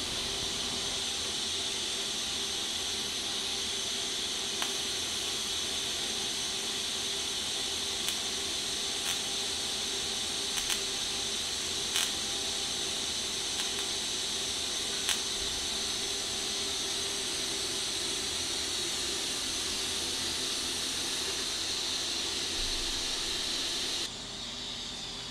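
Pulsed TIG welding arc running on steel with a steady hiss and a faint hum, a few faint ticks along the way, stopping a second or so before the end. The bead is laid with the pulse background amperage raised, and has too little heat in it.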